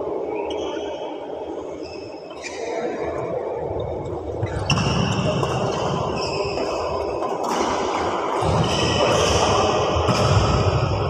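Badminton rally: rackets strike the shuttlecock with sharp pops, and court shoes squeak in short high chirps on the synthetic floor. Everything echoes in a large sports hall, and the play grows busier about halfway through.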